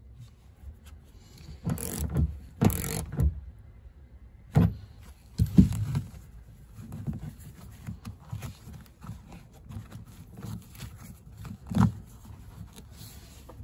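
Handling noise from a seat belt's anchor end: the metal anchor plate and bolt clinking and scraping, and the webbing being pulled back through its plastic boot, in a few short bursts about two, five to six, and twelve seconds in.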